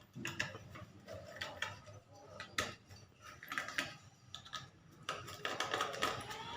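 Scattered small clicks and taps as parts are worked off a laptop mainboard by hand, with a few sharper clicks along the way.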